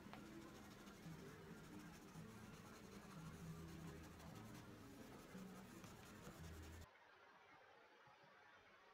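Faint scratchy rubbing of a burnishing stick over the backing paper of a rub-on transfer, pressing the design onto a wooden tabletop. It stops abruptly about seven seconds in, leaving faint room tone.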